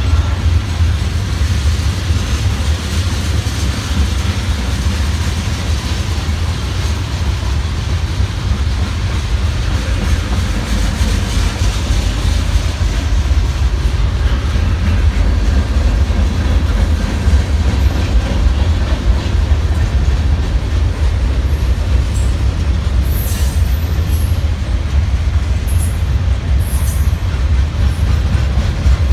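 Freight cars of a mixed freight train (tank cars, autoracks, boxcars, gondolas) rolling past close by: a steady heavy rumble of steel wheels on rail, with a few brief high-pitched squeaks near the end.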